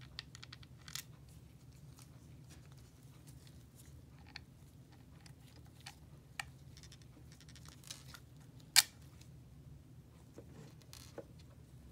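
Scattered small clicks and taps of tiny screws and a small screwdriver being handled against the plastic housing of a Gilson Pipetman L multichannel pipette during reassembly, with one much louder sharp click near the end.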